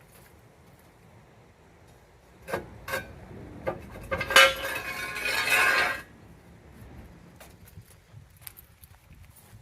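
Metal parts clinking three times, then about two seconds of jangling, ringing metallic rattle that stops suddenly, in the manner of metal gear being handled or set down.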